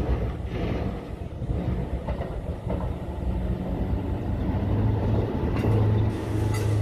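Diesel on-track engineering vehicle passing close by on the rails, its engine running under steady rail noise. The low engine hum grows louder over the last couple of seconds as it comes nearest.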